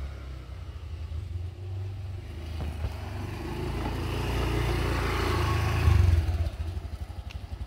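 Small motor scooter running as it rides along and pulls up, loudest about six seconds in, then easing off.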